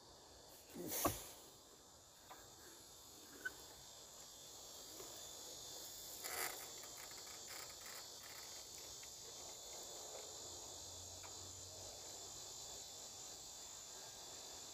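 Steady high-pitched chorus of insects in the grass, with a short rushing noise about a second in, a softer one around the middle and a few faint clicks.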